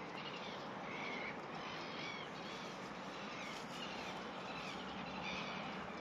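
Birds singing at dawn: short, arched chirping notes repeated every half second or so over a steady background hiss.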